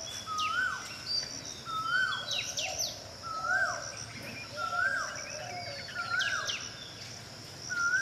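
Tickell's blue flycatcher calling: a short rising whistle that ends in a quick downward sweep, repeated about every second and a half, with thin high notes sweeping down between them. A steady high insect drone runs underneath.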